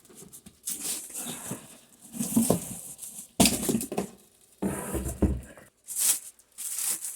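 Cardboard box and packing rustling as a heavy cast-iron woodworking vise is lifted out by hand, with a sharp knock about three and a half seconds in and a heavier thud about a second later.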